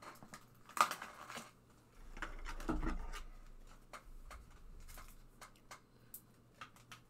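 Trading cards and their packaging being handled on a table: light rustling, scraping and small clicks, with a louder rustle about a second in.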